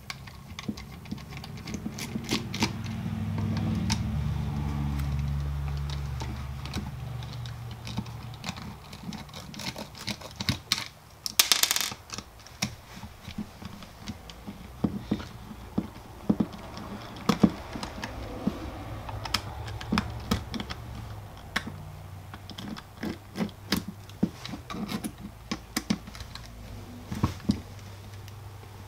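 Small clicks and taps of a screwdriver backing Torx screws out of the plastic casing of a Milwaukee M12 rotary tool, with the tool and screws handled on a bench. A louder clatter comes about 12 seconds in. A low hum swells in the first several seconds and fades out after about 20 seconds.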